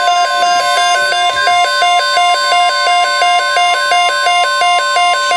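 NOAA Weather Radio's steady warning alarm tone, with a weather alert radio's own two-pitch alarm beeping rapidly over it: the signal that a Tornado Watch alert is being broadcast.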